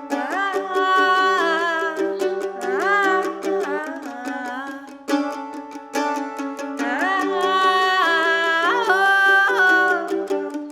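Mandolin picking a steady run of notes, with a wordless sung melody that swoops and glides over it in two long phrases.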